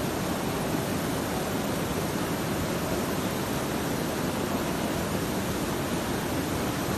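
Mountain stream rushing over rocks and small rapids: a steady, unbroken wash of water noise.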